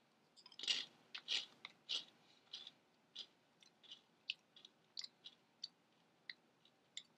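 A single dry CinnaFuego Toast Crunch cereal square being chewed with the mouth closed: quick crisp crunches, loudest in the first second or two, thinning to sparse faint crackles as it breaks down.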